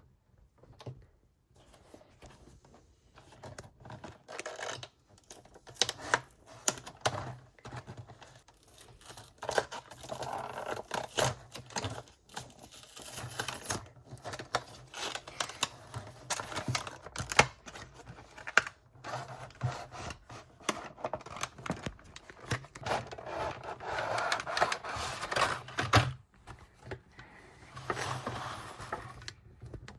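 A Hot Wheels 5-pack's cardboard-and-plastic blister packaging being torn and pried open by hand: irregular clicks, tearing and crinkling, with busier stretches of rustling partway through and near the end.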